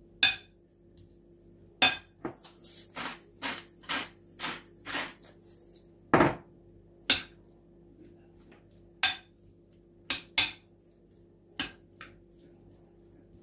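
Metal spoon clinking and tapping against a glass dish while boiled cauliflower is broken into small pieces: a quick run of taps, then a few single clinks.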